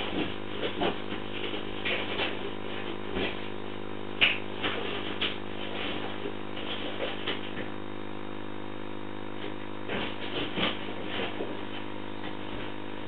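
Steady electrical hum and hiss picked up by a porch CCTV camera's microphone, with scattered short clicks and ticks.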